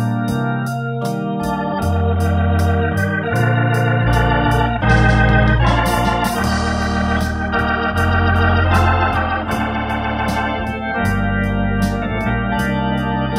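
Hammond T500 organ playing a slow pop ballad: sustained chords over a low bass line, with a steady ticking beat running underneath.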